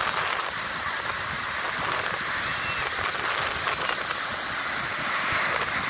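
Ocean surf: waves breaking offshore and washing up over the sand at the shoreline, a steady hiss, with wind buffeting the microphone.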